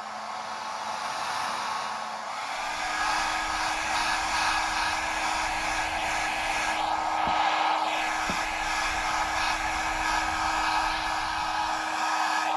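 Handheld hair dryer blowing steadily, a whooshing rush of air over a motor hum. The hum steps up in pitch and the dryer grows louder about two and a half seconds in, then holds steady.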